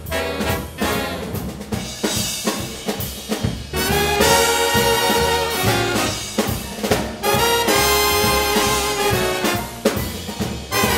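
Big band swing recording: drum kit with the brass section. About four seconds in, the full brass comes in playing loud held chords, broken by a few short gaps.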